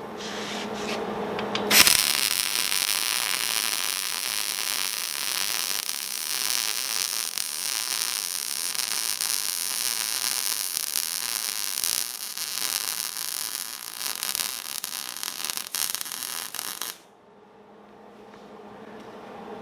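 Electric welding arc crackling and hissing steadily on thin steel for about fifteen seconds, striking with a sharp crack about two seconds in and cutting off abruptly near the end. A steady low hum is heard before the arc strikes and after it stops.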